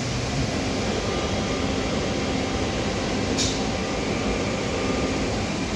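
Steady hum and hiss of ventilation and machinery on a factory floor, with a few faint steady tones through it. A brief high hiss, like a short puff of air, comes about three and a half seconds in.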